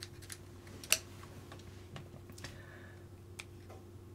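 Faint light clicks and taps of small plastic RC car kit parts and screws being handled and fitted by hand, with one sharper click about a second in, over a faint steady hum.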